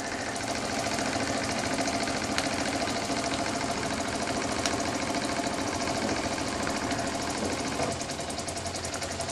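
Cyldon 13-2 toy steam engine with a semi-rotative valve, running steadily on live steam, with a rapid even beat of exhaust and a continuous hiss. Its overfilled boiler is priming, so water is carried over with the steam and spat out around the cylinder.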